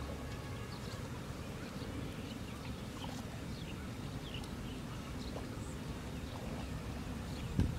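Outdoor ambience: a steady low rumble with scattered short bird chirps, and a single thump near the end.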